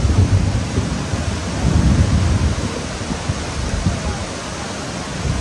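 River in flood, a fast muddy torrent rushing past: a loud, steady roar of water with a heavy low rumble that swells and eases.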